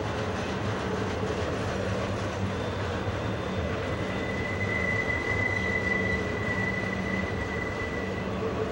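Trailer-on-flatcar intermodal freight cars rolling around a tight curve with a steady rumble. From about four seconds in until near the end, a single high wheel squeal rings out: wheel flanges squealing against the rail on the curve.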